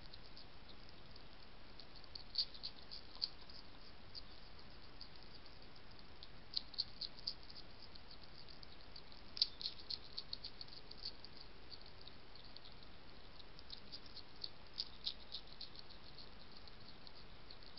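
European hedgehog chewing food from the ground: irregular clusters of quick, crisp crunching clicks, with a few louder crunches about a third of the way in and again past the middle.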